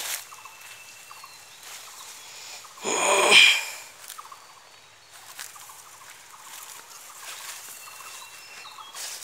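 A loud fowl call, about a second long, about three seconds in, over faint short high chirps and a low outdoor hiss.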